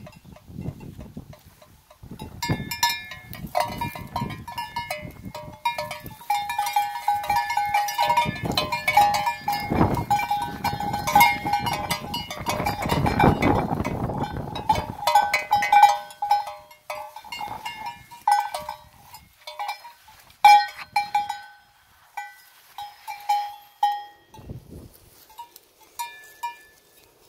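Sheep bell (cencerro) clanking irregularly and repeatedly as the sheep wearing it moves, busiest through the first two-thirds and sparser near the end. A low rumbling noise lies under it for several seconds in the middle.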